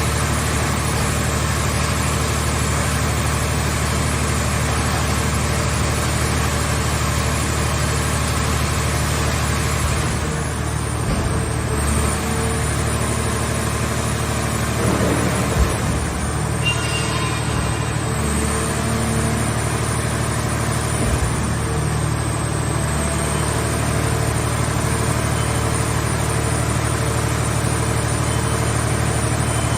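The engine powering a hydraulic car-body baler runs at a steady speed, with a few dull knocks around the middle.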